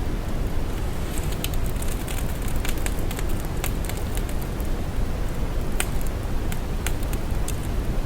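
Steady synthetic brown noise, a deep hiss weighted heavily to the low end, with irregular static crackles ticking through it from about a second in.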